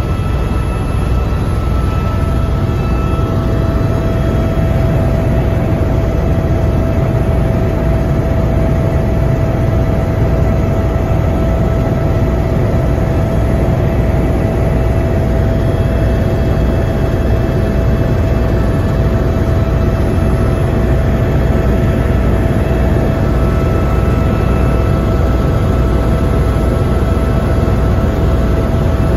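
Helicopter engine and rotor noise heard from inside the cabin in flight: a steady low rumble with a whine held at one pitch, which comes in about two seconds in.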